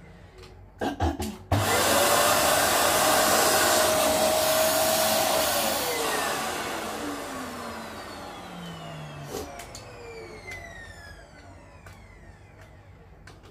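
Dyson vacuum cleaner started after a few knocks: its motor comes up suddenly to a loud, steady whine for about four seconds, then is switched off and spins down, the whine falling in pitch and fading away.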